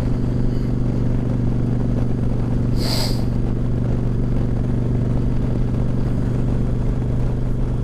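Yamaha V-Star 1100 Classic's air-cooled V-twin running at a steady, unchanging pace while cruising, with wind noise over it. There is a brief higher-pitched hiss about three seconds in.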